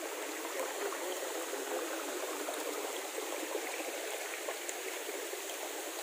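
Shallow stream water running over rocks, a steady rush of splashing and trickling.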